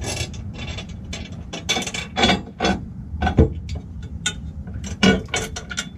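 Metal dock hardware being handled: a backing plate and washer fitted onto threaded rods, giving irregular clinks, scrapes and rattles of metal. A sharper knock comes about three and a half seconds in, and another near five seconds.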